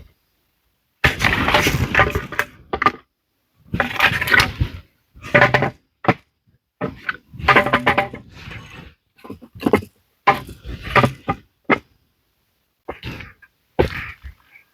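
Repeated bursts of cracking and breaking wood, about six of them, each a second or two long, with silence between.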